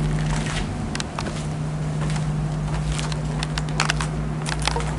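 A steady low mechanical hum with scattered light crackles and clicks over it.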